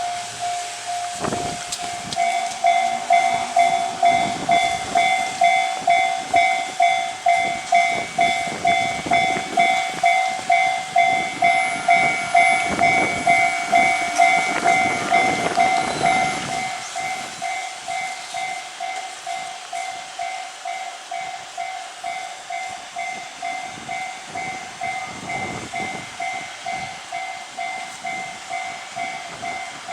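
Japanese railway level-crossing warning bell ringing its repeated two-tone ding, about two strikes a second. From about 8 to 17 seconds in, the rumbling noise of a passing train rises over it and then fades, and the bell rings on, a little quieter.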